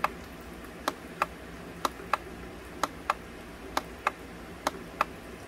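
Push-button on a digital alarm clock pressed five times, about once a second, each press a pair of sharp clicks as it goes down and comes back up, stepping the clock's level setting up one step at a time.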